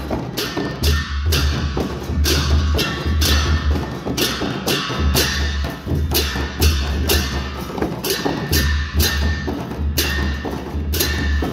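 Dhime baja: several Newar dhime drums, each two-headed barrel drum struck with a stick on one head and the bare hand on the other, played together with clashing hand cymbals. The rhythm is fast and steady, with sharp cymbal crashes over deep drum booms.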